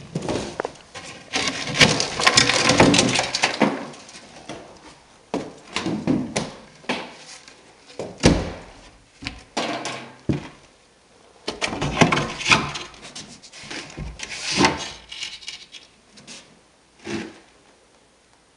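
Wooden boards being worked by hand: a rasping, scraping stretch over the first few seconds, then irregular knocks and scrapes of wood on wood.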